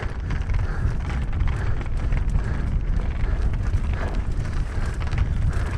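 Wind buffeting the microphone as a mountain bike runs fast down a rough dirt trail, with a steady stream of quick rattles and knocks from the bike over the ground.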